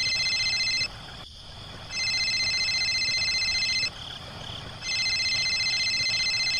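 A trilling electronic tone of several high pitches sounding together, repeating in bursts of about two seconds with about a second's pause between them.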